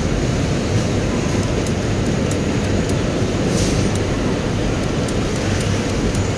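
Eastman Automation industrial sewing machine running steadily as it stitches binding tape along a fabric edge, over the constant machine din of a garment factory floor.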